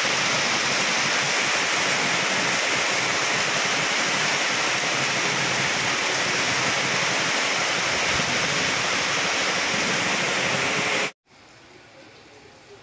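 Heavy rain pouring steadily, a dense even hiss. It cuts off suddenly about eleven seconds in, leaving a much quieter outdoor background.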